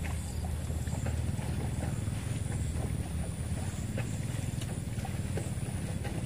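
Outdoor handheld ambience: a steady low rumble with scattered light clicks and rustles from handling, over a steady high whine.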